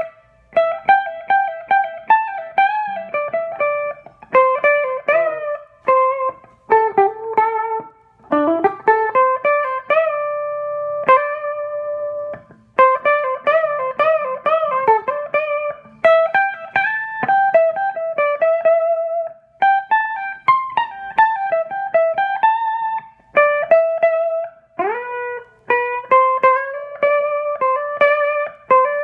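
Vogel Single Cut Jr. electric guitar with a Seymour Duncan JB humbucker, played through a JTM50-style valve amp built with NOS parts: improvised single-note lead lines, picked one note at a time, with upward string bends. One note is held for about two seconds around ten seconds in.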